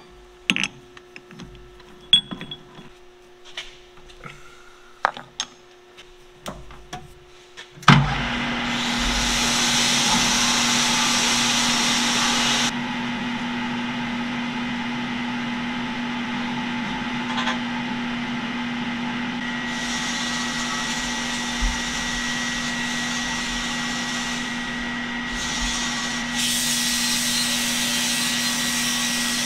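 Metal lathe: a few clinks and knocks as cold rolled steel round stock is set and tightened in the three-jaw chuck, then about eight seconds in the lathe starts and runs with a steady hum. Over the hum, stretches of hiss come and go; the last, near the end, is an abrasive strip held against the spinning steel shaft to polish it.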